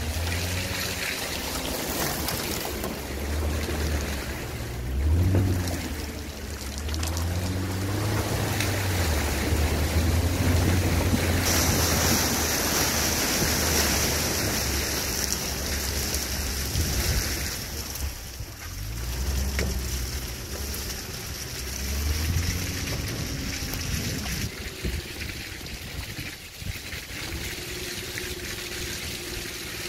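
Porsche Cayenne S engine revving up and down as the SUV drives along a muddy track, with the tyres sloshing through mud and puddle water. A steady high hiss joins for a stretch in the middle.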